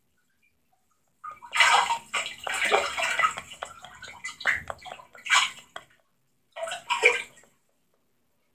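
Soapy water splashing and sloshing in a small ceramic ramekin as a toy doll is moved about in it. The splashing comes in irregular bursts starting about a second in, with a couple of short splashes near the end.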